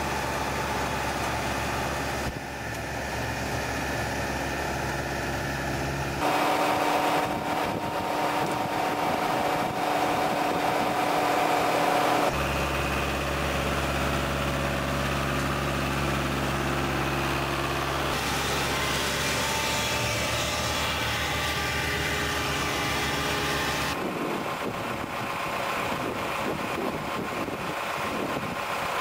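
Tractor-mounted Spearhead reach mower at work, its tractor engine and flail head running steadily while mowing a grass verge. The engine note and mix change abruptly every few seconds: a string of separate takes.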